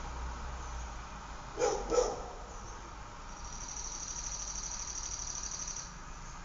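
A dog barks twice in quick succession, then a cricket trills with a fast, even pulsing for about two and a half seconds.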